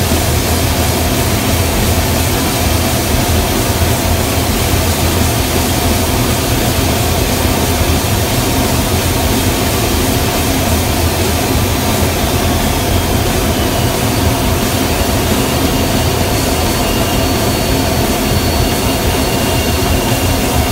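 Inside the cockpit of an F-15 Eagle fighter jet: its twin turbofan engines and the rushing air give a loud, steady drone with a deep hum, through final approach and the landing rollout. A faint high whine comes in about halfway through.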